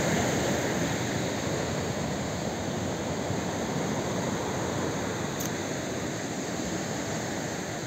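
Steady rush of sea surf washing on the beach, mixed with wind noise on the microphone, slowly easing off.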